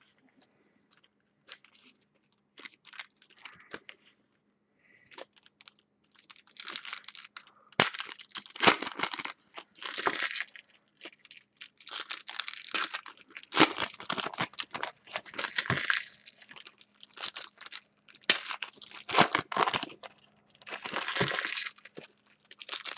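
Trading-card pack wrappers crinkling and tearing as packs are handled and torn open by hand. A few light clicks of handling come first, then about a second in from six seconds the crinkling turns dense and loud, coming in repeated bursts.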